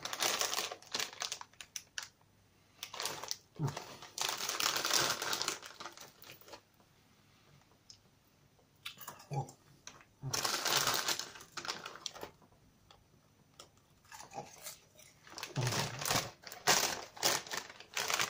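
Plastic bag of popcorn crinkling in several irregular bursts as a hand rummages in it, with popcorn being chewed in the quieter gaps.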